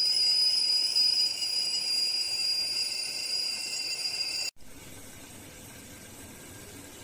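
Stainless-steel tea kettle whistling at the boil: a steady, high whistle with a lower second tone that cuts off suddenly about four and a half seconds in, leaving a faint hiss.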